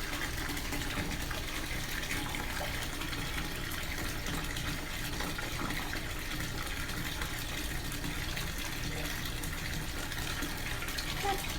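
Bath tap running full, filling a bathtub with a steady gush of water.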